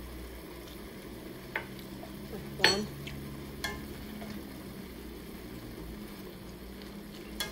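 Purple cabbage sizzling as it sautés in a stainless steel pan while a wooden spatula stirs it. A few sharp knocks of the spatula against the pan stand out, the loudest a little under three seconds in.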